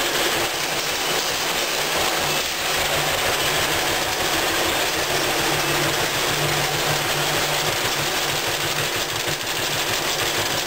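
Gasoline two-cylinder engine of a 1941 John Deere B tractor running steadily, a fast, even run of exhaust pulses.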